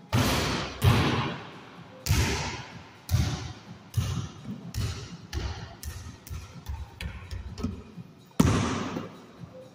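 A basketball thudding on a hard floor, about a dozen bounces, each followed by echo off bare walls. Near the start a shot strikes the backboard, and the bounces come quicker in the middle as the ball is dribbled.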